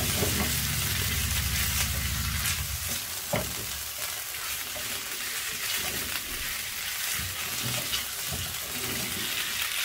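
Chicken pieces in oil and tikka masala paste sizzling in a hot non-stick frying pan while a silicone spatula stirs and turns them, with a few soft knocks of the spatula against the pan. A low steady hum underneath stops about two and a half seconds in.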